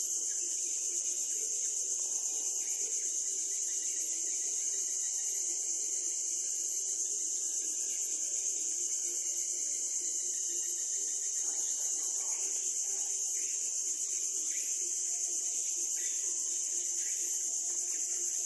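Steady high-pitched drone of an insect chorus in the mangroves, holding at one level throughout.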